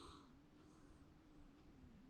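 Near silence between a sleeping Shiba Inu's snores: one breath fades out at the start, and a faint short breath follows under a second in.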